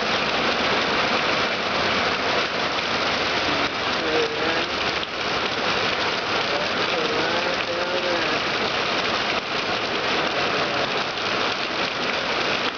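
Heavy tropical downpour: a very hard rain pouring steadily onto surfaces, with a faint wavering tone twice in the middle.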